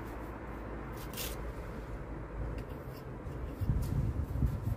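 Short scratchy scrapes as fingers rub at a mortar joint between bricks, over a steady low background rumble that grows louder near the end.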